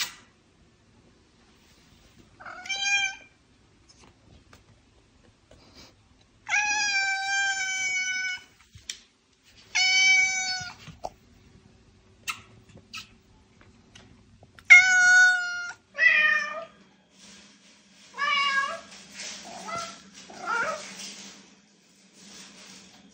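Domestic cat meowing: a series of about eight separate meows, the longest drawn out for nearly two seconds. The last few, from about three-quarters of the way in, are rougher and come in quicker succession.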